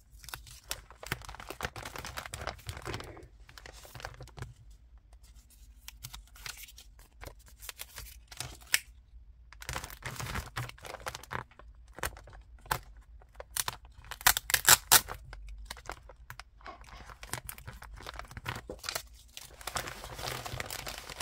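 Hands crinkling and rustling a glossy plastic poly mailer bag while a sticker label is peeled off its backing and pressed and smoothed onto it, in bursts of crackly plastic noise. A cluster of sharp, loud crackles comes about two-thirds of the way through.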